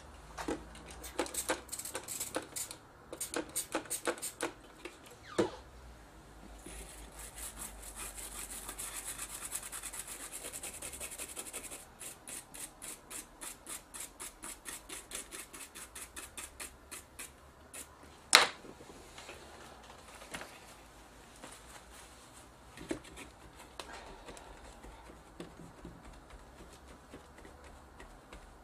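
Scrubbing strokes on a circuit board as excess solder flux is cleaned off with isopropyl alcohol. It starts with irregular bursts of rubbing, then a steadier hiss for a few seconds, then a run of quick, even strokes at about three a second. A single sharp click comes about two-thirds of the way through.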